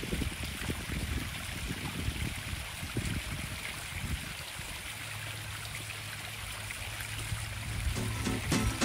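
Small rock waterfall splashing and trickling steadily into a backyard koi pond.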